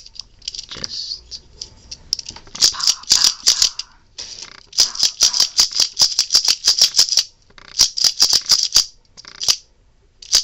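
The plastic Mech Tech weapon of a Transformers Dark of the Moon Voyager Megatron figure being worked by hand, giving rapid runs of plastic clicks in several bursts with short pauses between them.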